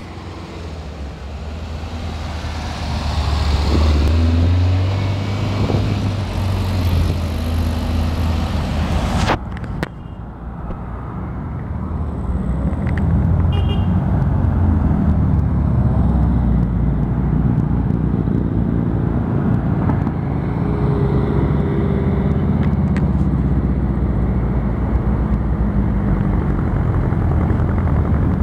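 Air-cooled Volkswagen Beetles rolling past one after another, their flat-four engines running at low speed, with a sudden break in the sound about nine seconds in.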